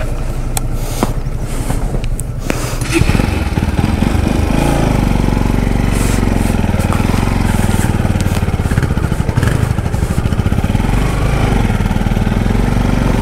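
Motorcycle engine running low at first, with a few sharp knocks, then opening up about three seconds in and pulling steadily under load over a rocky dirt track.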